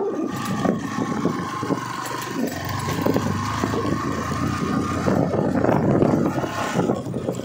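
Motorcycle engine running as the bike is ridden, a steady engine sound.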